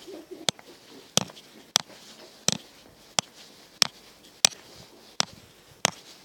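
Regular sharp clicks at a walking pace, about three every two seconds, the clip-clop of a walking horse.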